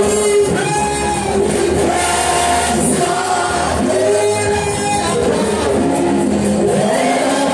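Gospel worship singing by a congregation or choir with musical accompaniment, in a large hall.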